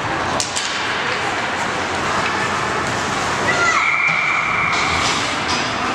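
Youth ice hockey rink with spectators talking and sharp clacks of sticks and puck about half a second in. About halfway through, a referee's whistle blows shrill and steady for over a second, stopping play.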